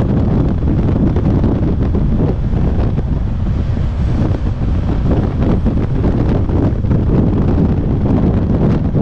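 Wind buffeting the microphone of a BMW R1200GS motorcycle cruising at highway speed, about 60 mph: a steady, loud, low rumble of rushing air, with the bike's running noise mixed in.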